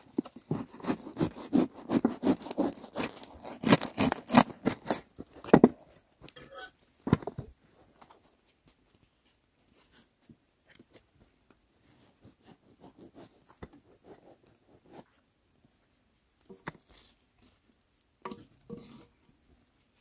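Rustling, crinkling and light knocks of things being handled, busy for the first six seconds, then only scattered clicks and knocks.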